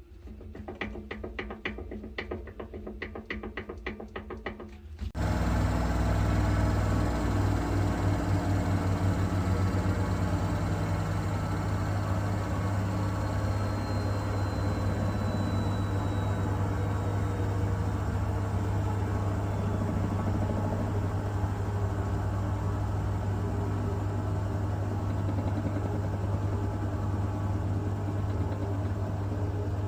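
Siemens washing machine clicking and knocking in a quick, regular rhythm as the drum turns. About five seconds in, the motor winds up into a spin with a steady, loud hum and rattle. The uploader puts these noises down to the drum spider after an overloaded hot wash.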